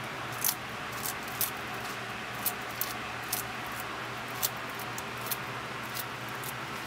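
Bearded dragon chewing a Dubia roach: irregular, sharp crunches of the roach's shell, about a dozen spread over several seconds, over a steady low hum.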